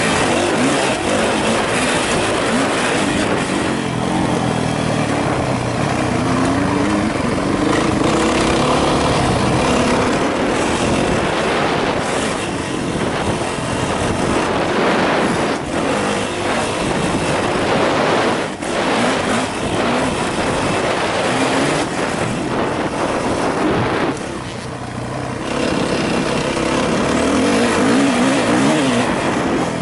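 Yamaha YZ450F's single-cylinder four-stroke engine being ridden hard, its revs rising and falling, with a couple of short drops in level where the throttle eases off. Heavy wind noise on the microphone throughout.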